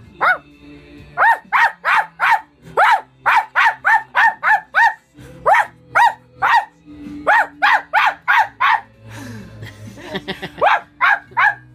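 Rapid runs of short, high-pitched barks, about two to three a second, broken by brief pauses, with music playing underneath.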